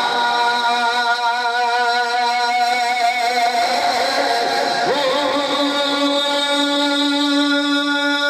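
Male voice singing a Punjabi naat into a microphone in long, drawn-out notes with a wavering, ornamented line over a steady instrumental drone. About five seconds in, the line settles into a long held note.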